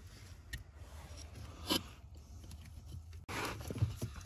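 Faint handling of plastic wiring-harness connectors and wires under a truck's dash: a couple of soft clicks and a brief rustle about three seconds in, as the accelerator-pedal connector is squeezed together and its locking tab pushed in.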